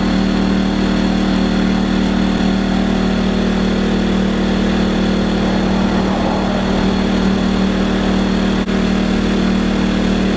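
WEN 56200i 2000-watt inverter generator's small four-stroke engine running steadily with no load yet connected, a constant even drone.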